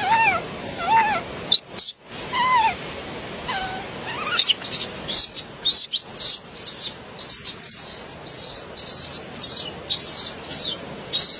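A young macaque giving short, arched whimpering calls, a few a second, for the first few seconds. From about halfway in, a long run of short, high chirps repeats about twice a second.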